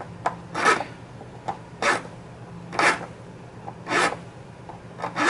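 Hand flat file rasping across a hard black pipe stem in five even strokes, about one a second, flattening the bite area to remove tooth chatter.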